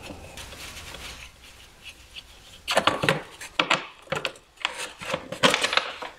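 A hard plastic engine cover being unscrewed and worked off by hand: quiet rustling at first, then from about halfway through a run of sharp plastic clicks, knocks and scraping.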